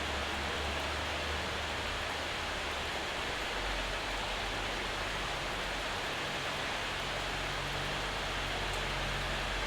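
Steady rain shower falling, an even hiss of rain with no single drops standing out.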